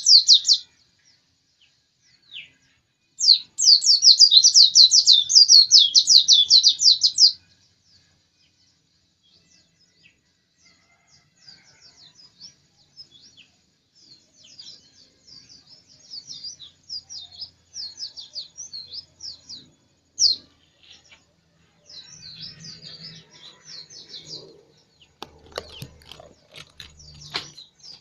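White-eye (pleci) singing. A loud, fast, high twittering song comes at the very start and again in a burst of about four seconds, followed by quieter, broken twittering. A few sharp taps or knocks sound near the end.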